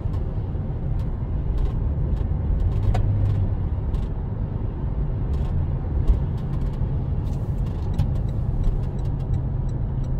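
Steady low rumble of a car's engine and tyres heard from inside the moving car, with faint scattered clicks.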